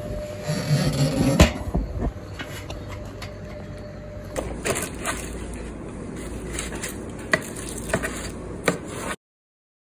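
Carving knife and fork clicking against a foil-lined roasting tray as roast pork is carved, a handful of sharp clicks in the second half.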